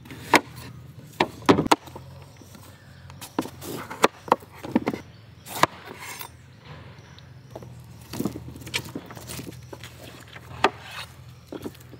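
Kitchen knife cutting into a raw bottle gourd on a wooden chopping board, with the split pieces handled and pulled apart: irregular sharp taps and short crunches of the blade through the firm gourd and against the board.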